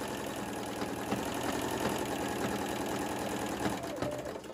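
Singer Quantum computerized sewing machine running steadily at speed, stitching a straight seam through layered cotton fabric, then stopping near the end.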